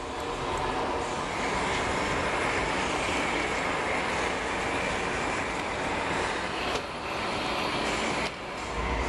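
Steady roar of a glassblowing studio's gas-fired furnace and glory hole burners, running continuously.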